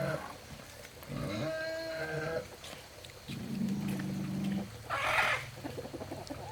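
Farm animals calling: several drawn-out pitched calls, with a lower, longer call about halfway through and a short noisy burst near the end.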